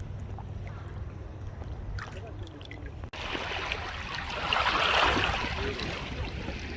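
Waves washing against the shore, an even watery wash that swells loudest about five seconds in, over a steady low rumble. The sound drops out for an instant about three seconds in.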